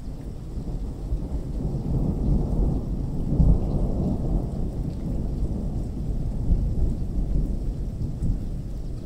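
Thunder rolling in a thunderstorm: a long, deep rumble that builds about two seconds in, is loudest near the middle and slowly dies away, with rain falling underneath.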